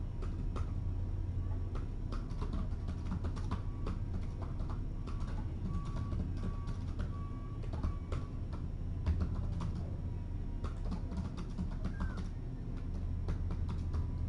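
Irregular light clicking and tapping over a steady low hum, with a few faint short high tones in the middle.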